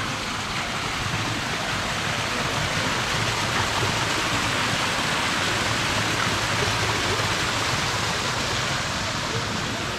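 Steady rush of running, falling water, like a small garden waterfall or cascade, swelling slightly toward the middle.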